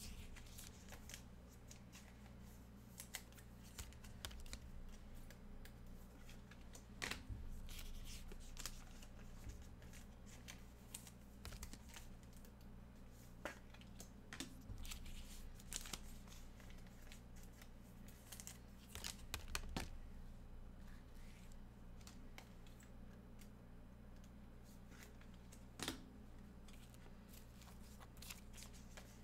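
Baseball card packs being torn open and the cards handled: faint rustling and crinkling of wrappers and card stock, with a few sharper taps, over a steady low hum.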